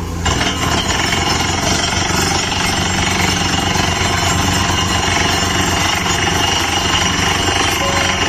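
Truck-mounted borewell drilling rig at work, its down-the-hole air hammer pounding rapidly and evenly at the bottom of the bore over the rig's engine and compressor. It cuts in suddenly just after the start.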